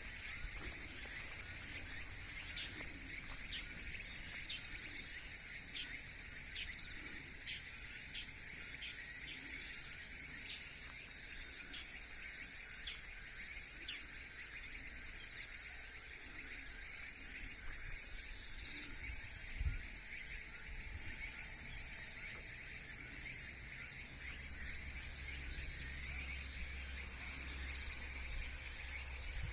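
Rural outdoor ambience: a steady high insect buzz, with short chirps repeating about once or twice a second through the first half. A single low thump about two-thirds of the way in, and a low rumble near the end.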